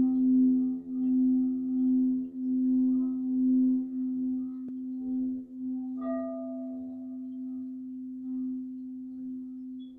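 Singing bowl ringing with a steady low hum that swells and fades about every second and a half. A higher ringing tone joins about six seconds in.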